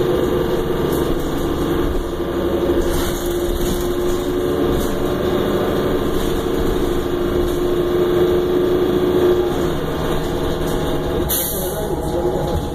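2009 Orion VII transit bus heard from inside the cabin while running: a steady low rumble from the engine and drivetrain, with a steady hum that fades out about ten seconds in. A brief hiss comes near the end.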